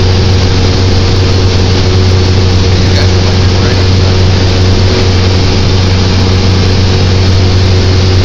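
Light aircraft's piston engine and propeller droning steadily, heard loud from inside the cabin.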